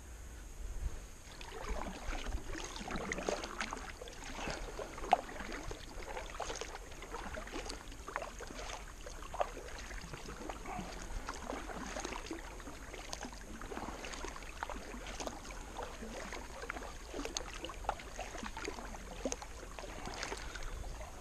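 Kayak paddle strokes: the blades dip and pull through the water with splashing and dripping, starting about a second in. Sharp knocks come now and then, the loudest about five seconds in.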